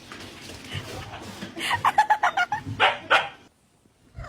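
A dog barking: a quick run of short, high yips about two seconds in, then two louder barks, cutting off suddenly near the end.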